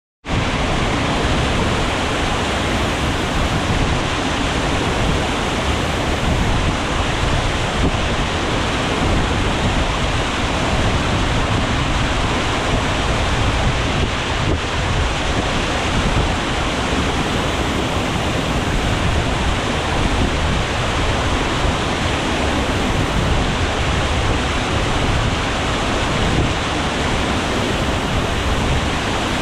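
Waterfall with water pouring and splashing into a pool, a loud, steady rushing noise without a break.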